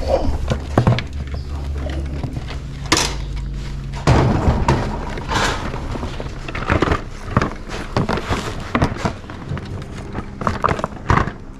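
Goods being handled and moved: an irregular run of knocks, clunks and rustles, over a low rumble during the first four seconds or so.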